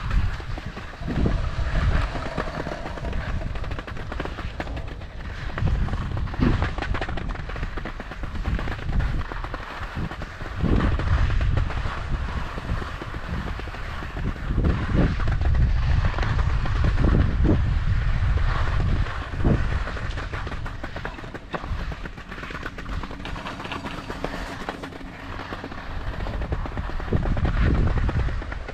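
Skis scraping along slushy spring snow while being towed up a T-bar surface lift: a continuous rough rumble, broken by several short thumps over bumps in the track.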